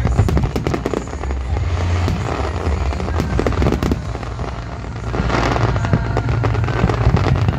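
Fireworks barrage: many aerial shells bursting and crackling in quick succession over a continuous low rumble. It eases briefly about four seconds in, then builds again.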